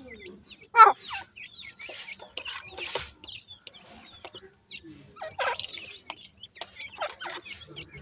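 Young francolin (teetar) chicks calling: many short, high chirps, with a few louder, harsher calls, the loudest about a second in and others around five and a half and seven seconds. Short rustles come from the dry soil they are pecking in.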